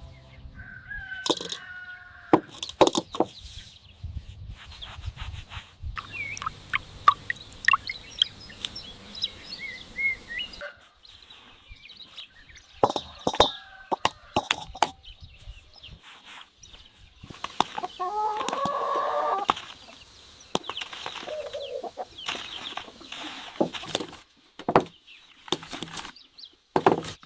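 Chickens clucking and calling, with one louder drawn-out call of about a second and a half roughly two-thirds of the way through. Frequent sharp clicks and knocks sound among the calls.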